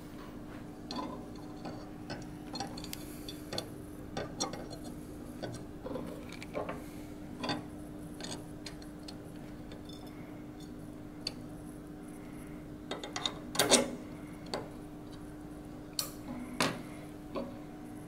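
Irregular small metallic clicks and taps as a screwdriver and small metal parts knock against an aluminium airsoft gearbox shell while an anti-reverse latch and its coil spring are fitted. The loudest cluster of clicks comes about three quarters of the way through. A steady low hum runs underneath.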